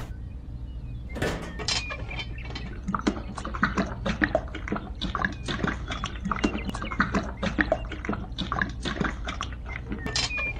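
Wet concrete slurry pouring from a miniature cement mixer drum and splattering into a hole, an irregular patter of small wet smacks and drips.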